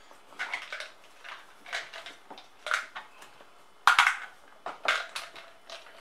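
A screwdriver backing Torx screws out of a dishwasher's inner door panel: a run of short scrapes and clicks as the driver bit grips, turns and shifts against the panel, the loudest a sharp click about four seconds in.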